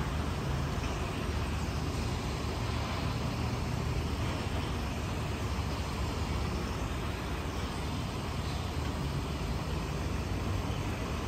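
Steady low rumble of road traffic, with an even hiss above it and no distinct events.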